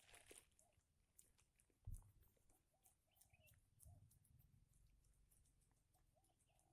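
Near silence: faint outdoor ambience with scattered soft ticks and a few faint short calls, and one dull low thump about two seconds in.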